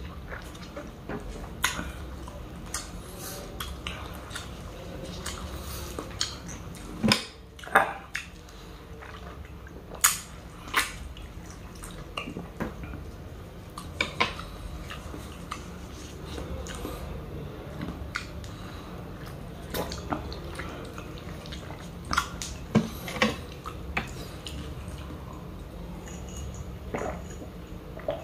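Close-miked mouth sounds of eating an orange: wet sucking, smacking and chewing as the juice and flesh are sucked from the wedge, heard as scattered sharp clicks and smacks, a few louder than the rest.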